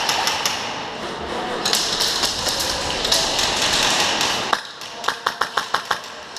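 Airsoft gunfire: a dense, rapid rattle of shots for the first four seconds or so, then after a short drop a quick string of about eight sharp shots, six or seven a second.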